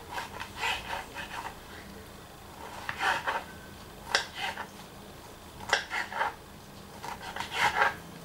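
Kitchen knife chopping canned pineapple rings on a wooden cutting board: quick taps and scrapes of the blade against the board, in about five short bursts with brief pauses between.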